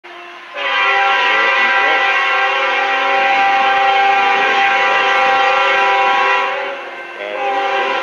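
Nathan K5HL five-chime air horn on a Union Pacific Tier 4 GE C45AH locomotive blowing a long chord for a grade crossing, coming in loud about half a second in, easing off briefly near the seven-second mark and then sounding again. The horn is fouled, its chord sounding off.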